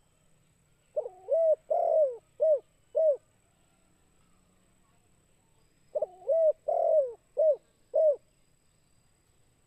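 Spotted dove cooing: two 'kuk 2' phrases about five seconds apart. Each phrase has two quick notes, a longer rolling middle note and two short closing notes.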